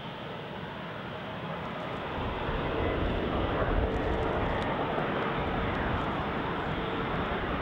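Airbus A330-243F freighter's two Rolls-Royce Trent 772B-60 turbofans on final approach, a steady jet rumble that grows louder about two seconds in as the aircraft nears, with a faint steady whine.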